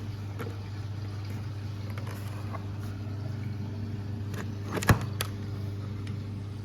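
A steady low electrical hum, with scattered light clicks and one sharp knock about five seconds in.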